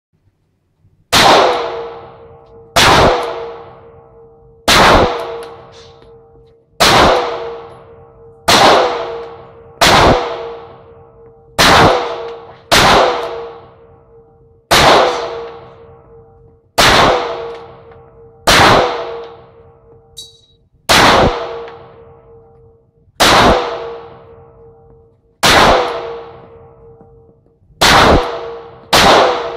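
Glock 17 9mm pistol fired about sixteen times in slow, deliberate succession, one shot every one to two and a half seconds. Each shot is a sharp crack followed by a ringing tone that fades over a second or more.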